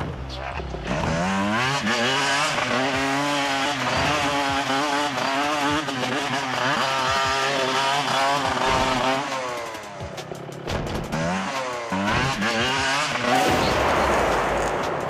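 Motocross bike engines revving, pitch rising and dropping repeatedly as the throttle is worked; about thirteen seconds in the sound changes to a rough, noisy rush.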